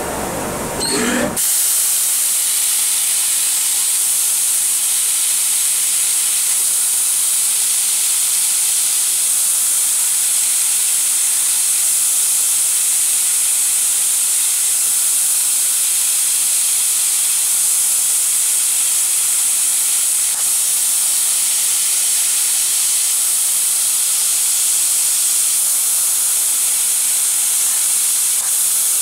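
2 kW IPG fiber laser cutter cutting silver sheet: a loud, steady high hiss of the assist gas jetting through the cutting nozzle. It starts abruptly about a second and a half in.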